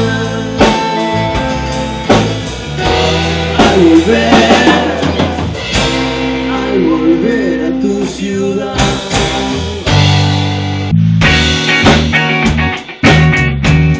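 Rock band playing with electric guitars, bass and a drum kit, the drums keeping a steady beat; the sound drops out briefly about eleven seconds in before the full band comes back in.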